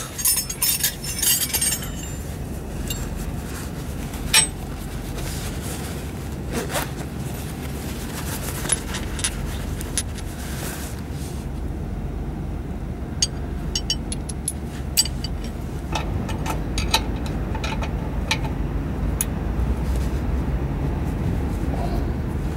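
Metal hand tools clinking against the exhaust flange bolts, a few sharp clicks at first, then many quick irregular clicks and ticks in the second half, over a steady low rumble.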